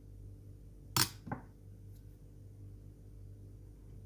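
A steel spoon knocking against a stainless-steel mixer-grinder jar: one sharp metallic clink about a second in and a softer one just after it, over a faint steady low hum.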